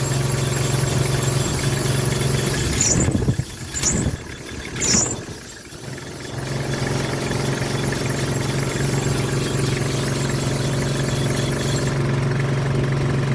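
Car engine idling steadily under the hood. A few seconds in it drops away for about three seconds, with three sharp clicks, then builds back up to a steady idle.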